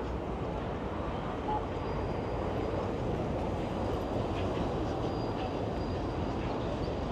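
Steady low rumble of city street noise, with a faint thin high whine through the middle seconds.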